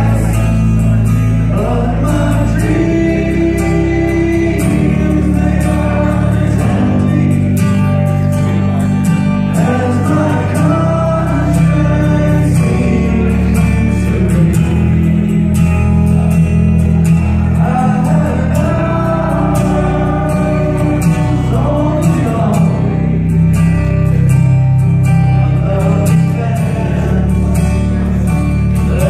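Karaoke: a man singing into a handheld microphone over a recorded backing track with a strong bass line, amplified through a PA speaker.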